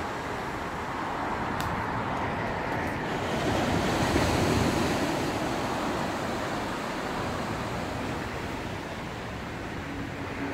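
Small waves breaking and washing up a sandy beach, a steady hiss of surf that swells briefly about four seconds in.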